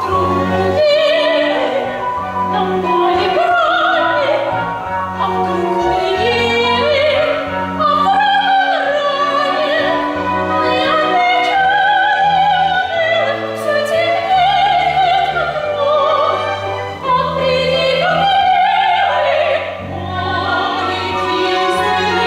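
Operatic singing with a strong vibrato, held notes sliding between pitches, over a symphony orchestra playing sustained bass notes.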